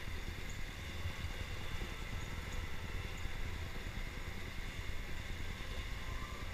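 Electric indoor go-kart rolling slowly, heard from the driver's seat: a steady low rumble from the tyres and chassis on the concrete track, with a faint high motor whine.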